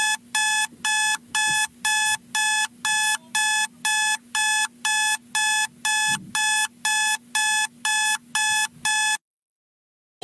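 Electronic emergency-alert alarm tone beeping rapidly and evenly, about two beeps a second, each beep the same steady tone; it cuts off suddenly about nine seconds in.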